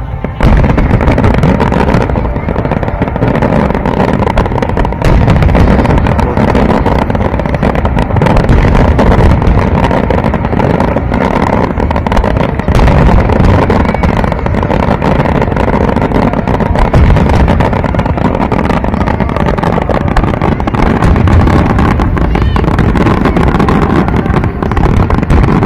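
Fireworks display in a dense barrage: loud, continuous booms and crackles packed closely together, with deep rumbling underneath.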